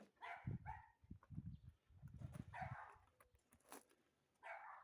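A dog barking repeatedly, faint.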